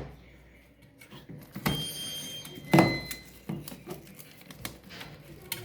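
A few knocks and clinks of hand work on a washing machine during a motor change, the loudest about three seconds in, with a short high metallic ring about two seconds in.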